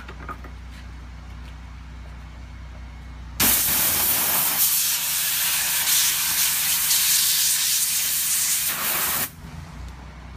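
A 3500 PSI pressure washer jet blasting an old foam Croc shoe on concrete and cutting it in half: a loud, even hiss that starts suddenly about three seconds in and cuts off after about six seconds. A steady low hum runs underneath before and after the spray.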